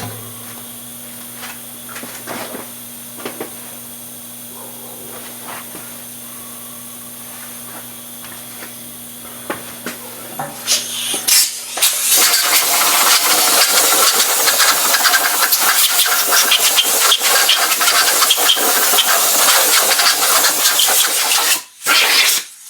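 Low steady hum with a few light knocks, then a compressed-air blow gun hissing loudly and steadily for about ten seconds, cutting off briefly once near the end, as it blows out the engine block before the crankshaft goes in.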